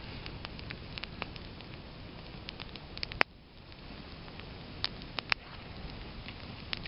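Small campfire of dry twigs, branches and grass crackling, with sharp pops scattered through it; the loudest pop comes about three seconds in, and a quick cluster follows near the five-second mark.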